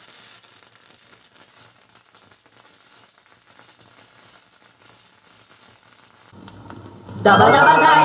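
Crackle and hiss of a 45 rpm vinyl single's lead-in groove under the stylus, with a low rumble joining near the end. About seven seconds in, the record's music starts suddenly and loudly.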